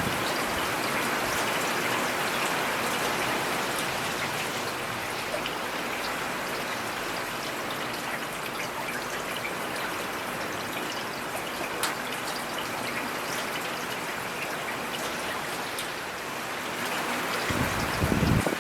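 Steady rain falling in a forest: a dense, even hiss with scattered sharper drop ticks. A low rumble swells in near the end.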